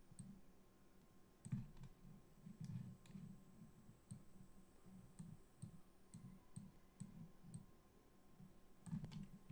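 Faint, irregular computer mouse clicks, a dozen or so, over a quiet room with soft low thuds of handling.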